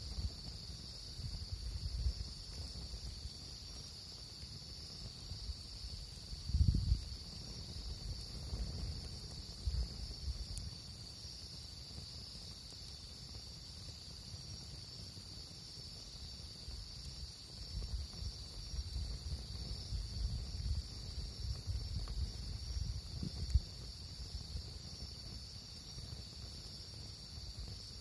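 A steady, high, continuous chorus of insects, such as crickets, at an outdoor campsite. Low rumbles and thumps come and go underneath, strongest about seven seconds in and again in the second half.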